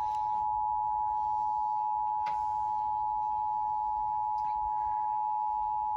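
Emergency Alert System attention signal: two steady tones sounding together without a break. It marks the start of an emergency alert, here a National Weather Service severe thunderstorm warning.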